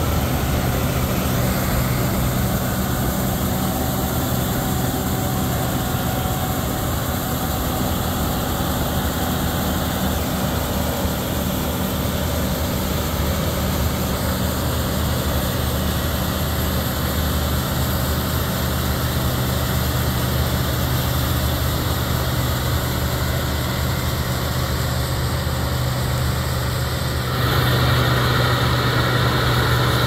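International Harvester 1460 Axial-Flow combine running steadily at harvesting speed, a low diesel drone together with the threshing machinery. Near the end it gets suddenly louder and closer as the view changes to right behind a combine cutting soybeans.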